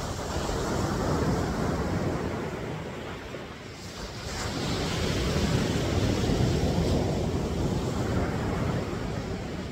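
Ocean surf breaking and washing up the beach in two swells, one about a second in and a longer one in the middle, with wind rumbling on the microphone.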